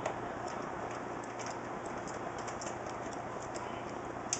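Hand screwdriver driving a power supply mounting screw into the back of a steel PC case: a run of small, uneven high clicks over a steady hiss, with a sharper click just after the start and another near the end.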